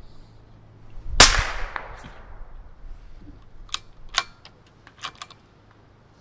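A scoped precision rifle fires a single shot about a second in, a sharp report that fades over roughly half a second. A few seconds later come four quick metallic clicks as the bolt is worked to chamber the next round.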